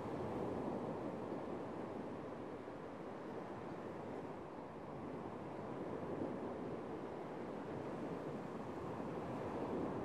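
Sea surf breaking and washing onto a sandy beach: a steady wash of small waves that swells and eases every few seconds.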